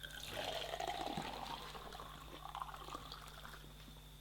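Water pouring into a container, its pitch rising steadily as the vessel fills.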